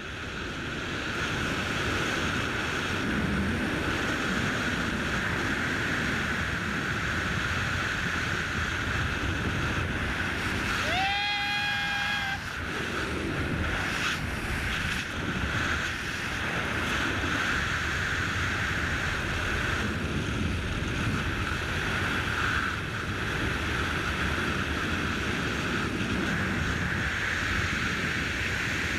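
Rush of wind past a BASE jumper's helmet camera in flight, building over the first second after the exit and then holding steady. A short pitched tone sounds briefly about eleven seconds in.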